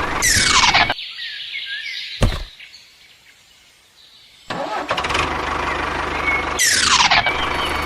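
Two quick falling whoosh effects, one at the start and one near the end, around a small engine or motor that drops out for a couple of seconds after a click and then runs steadily again from about halfway through.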